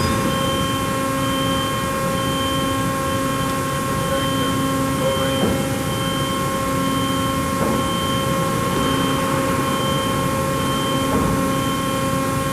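Vanguard CNC vertical boring mill running: a steady machine hum with several held tones, one of them coming and going, and a few faint clicks.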